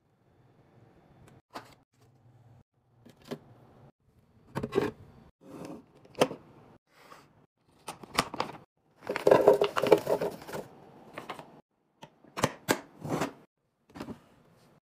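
Plastic pouch of dishwasher pods crinkling and pods clattering into a clear plastic canister, loudest and densest about nine to ten and a half seconds in. Scattered sharp clicks and taps run through it, with a few quick clicks near the end as the canister's lid is handled.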